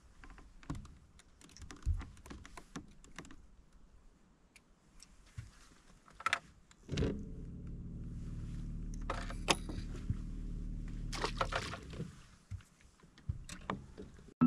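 Scattered clicks and rattles of fishing gear being handled on a boat deck. A steady low motor hum comes in about seven seconds in and stops about five seconds later.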